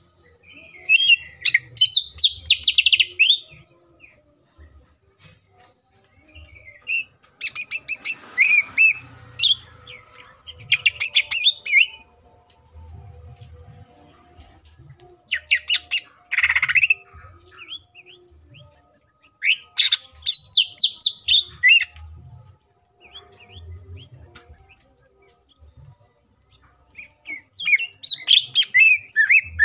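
Green leafbird (cucak ijo) singing in about six loud bursts of fast chirps, whistles and harsh notes, each a second or a few seconds long, with short quiet pauses between them.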